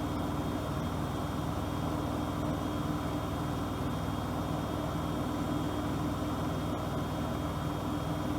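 Bosch Aquasensor WFP3231 washing machine running: a steady machine hum with a constant mid-pitched whine over a low rumble, unchanging throughout.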